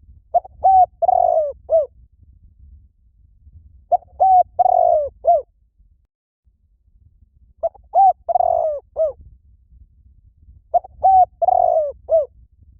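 Spotted dove cooing: four phrases of several short coos each, about one every three seconds, each coo falling at its end. A call of the kind played to lure and excite doves.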